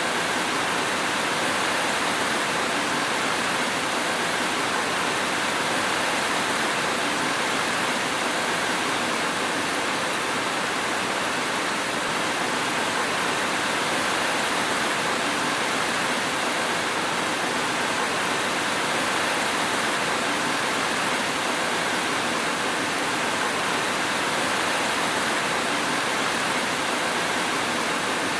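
Steady rain, an even continuous hiss with no separate drops or thunder standing out.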